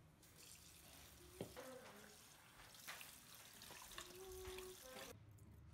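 Faint running kitchen tap water splashing into a plastic colander of coriander in a sink as hands rinse the leaves; the water cuts off suddenly near the end.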